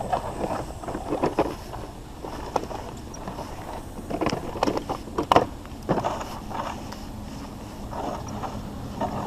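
Irregular knocks and clanks of scrap metal being handled, the sharpest about halfway through, with a low steady hum coming in near the end.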